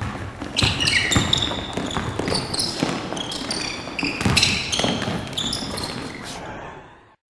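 A basketball bouncing and sneakers squeaking on a hardwood gym floor as players cut and move: dull thuds mixed with many short, high squeaks. The sound fades out near the end.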